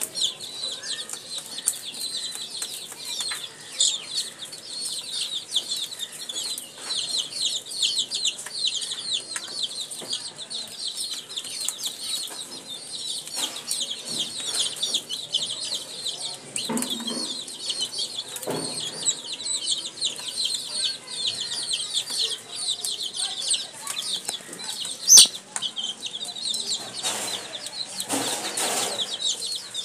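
A brood of baby chicks peeping: a continuous, overlapping chorus of rapid high-pitched cheeps while they feed. A single sharp loud click about 25 seconds in.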